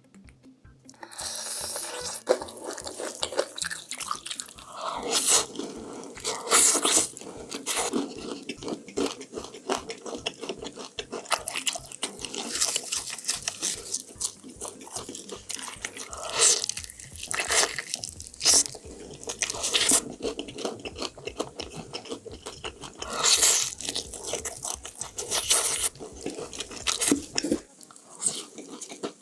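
Crispy fried chicken crunching loudly through repeated bites and chewing close to the microphone, starting about a second in.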